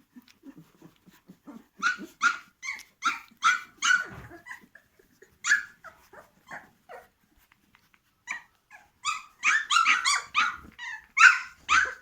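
Seventeen-day-old puppies yelping in runs of short, high-pitched cries. Soft low grunts come in the first two seconds, and the yelps pause for about two seconds midway before a denser, louder run near the end.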